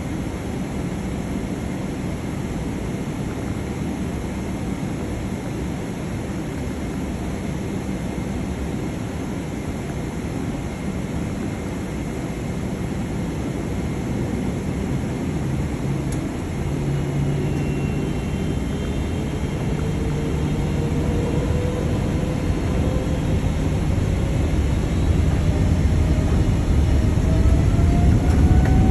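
Boeing 777-300ER's GE90 jet engines running with a steady rumble, then from about halfway a whine that rises in pitch as the noise grows louder: the engines spooling up to takeoff thrust.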